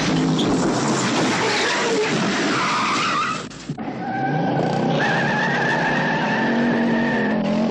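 Movie car-chase soundtrack: V8 cars revving hard with tyres squealing and skidding on pavement. The sound drops out briefly a little over three seconds in, then comes back as a long steady tyre squeal over the engines.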